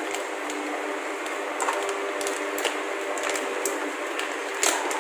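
Plastic resealable pouch being opened and handled: short irregular crinkles and clicks of the plastic.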